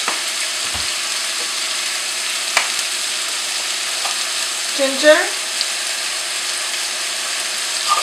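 Diced apples sizzling steadily in melted butter and sugar in a stainless steel pan as they lightly caramelize, with a few small clicks.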